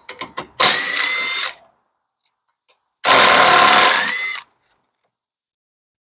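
Cordless electric ratchet running in two bursts of about a second each, some two seconds apart, spinning out a bolt at a rear brake caliper. A few light clicks come just before the first burst.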